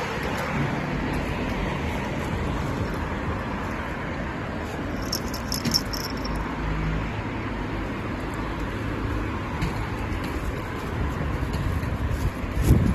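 Steady rumble of road traffic, with a sharp thump near the end.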